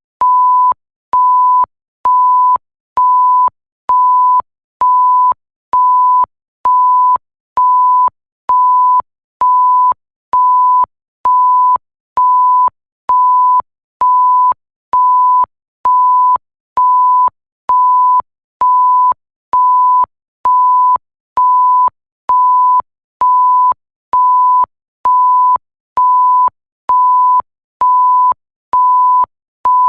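Electronic bleep tone beeping on and off at an even pace, a little more than once a second. Each beep is one pure, steady pitch, with short gaps between.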